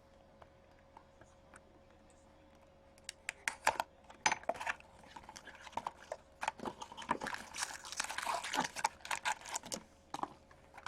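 Crinkling, rustling and clicking of cardboard and plastic-wrapped card packs as a box of hockey cards is opened and emptied by hand. The handling starts about three seconds in and runs as a busy patter of small clicks and crackles.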